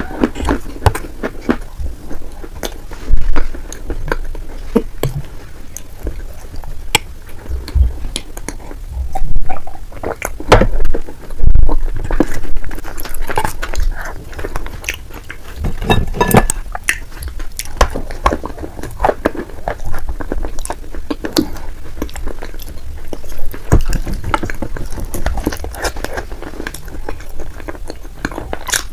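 Close-miked chewing and biting of dry edible clay chunks and spoonfuls of wet clay paste: irregular crunches and clicks, with a few louder crunches.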